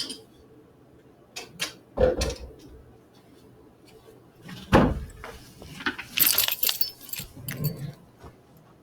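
Handling noises: two dull thumps and a few sharp clicks, then a brief bright metallic jingle about six to seven seconds in.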